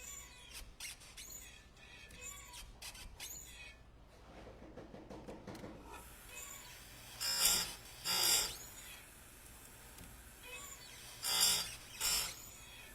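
Electric chainsaw chain grinder's abrasive wheel grinding the cutter teeth of a saw chain: four short, sharp grinds of about half a second each, in two pairs, the second pair about four seconds after the first.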